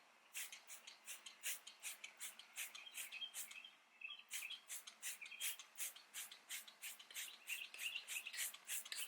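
Towel rubbing back and forth on a plastic headlight lens, quick short strokes at about three to four a second with a brief pause midway.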